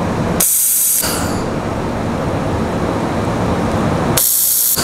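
Steady, loud rushing machine noise. About half a second in, and again near the end, it gives way for about half a second to a bright high hiss.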